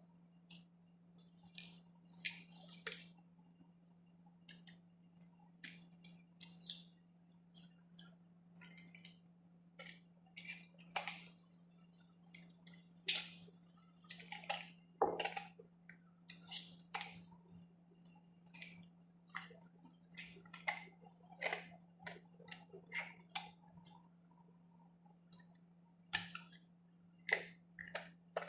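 Irregular sharp clicks and taps of kitchen utensils at work preparing ginger, sometimes several in quick succession, with short pauses, over a faint steady low hum.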